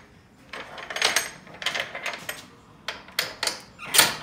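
Rear door latch of an enclosed cargo trailer being worked open: a series of metal clicks, clanks and knocks, the loudest near the end.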